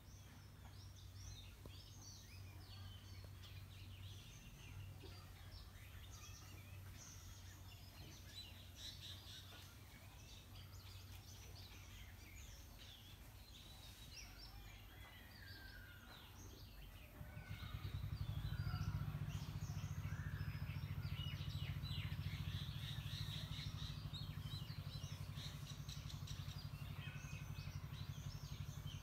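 Several small birds chirping and calling over one another, with a few short falling whistles. About halfway through, a low steady hum comes up and stays, louder than the birdsong.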